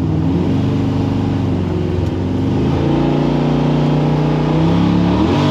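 The 7.0-litre LS7 V8 of a 1967 Chevy C-10 restomod, heard from inside the cab while driving. Its pitch steps down and up a few times and rises again near the end.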